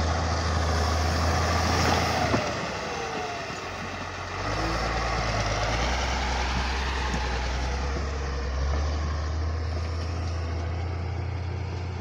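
Caterpillar motor grader's diesel engine running close by as the machine works over rocky fill. The engine note drops about two seconds in and picks up again after about four seconds.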